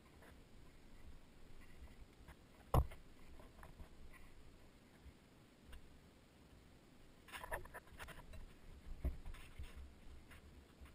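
Scattered small clicks, rustles and knocks of hands working among wiring and parts in a car's engine bay, with one sharp knock about three seconds in and a burst of rustling and clicking a little past halfway.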